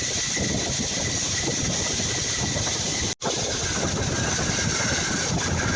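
Wood lathe running as a piece of wood is turned, a steady, noisy mechanical sound. It drops out for an instant about three seconds in.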